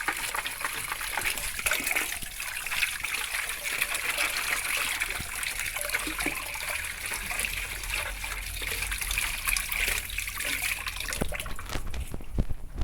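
Running water splashing steadily as a washing-machine part is rinsed clean, with a few knocks near the end.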